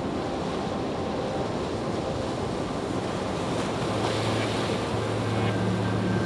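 A steady rushing noise that grows slowly louder, with a low hum coming in about four seconds in.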